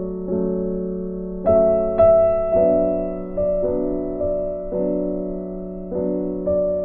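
Slow, gentle piano music: soft notes struck every half second to second and left to ring over a held low note.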